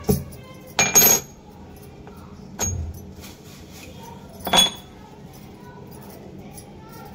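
Metal kitchen utensils clattering and clinking: a loud clatter with a ringing tail about a second in, a duller knock near three seconds, and another ringing clink past four seconds.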